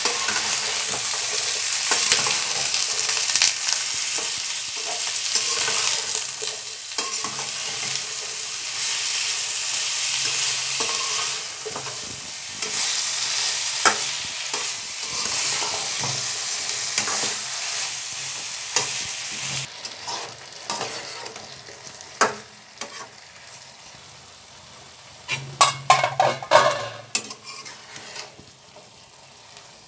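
Vegetable sticks frying in oil in a nonstick pan, sizzling steadily while a metal spatula stirs and scrapes through them. After about twenty seconds the sizzle drops away, leaving sharp clicks and scrapes of the spatula against the pan.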